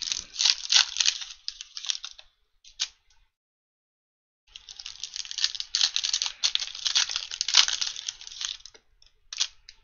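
Foil trading-card pack wrapper crinkling and tearing as it is opened by hand, in two spells of crackling with a short quiet pause between, and a couple of brief crinkles near the end.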